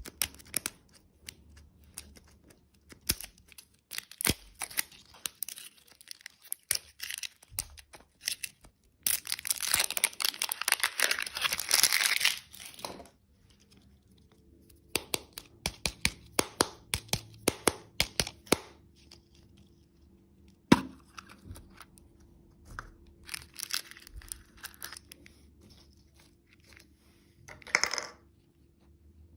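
Candy packaging being crinkled and torn open: scattered sharp crackles, with a loud stretch of continuous tearing about nine seconds in that lasts around three seconds, later clusters of crinkling, and a short rip near the end.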